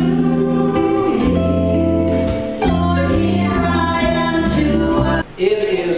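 Live band playing: women singing at microphones over acoustic and electric guitars with a steady low bass line. The music cuts off about five seconds in.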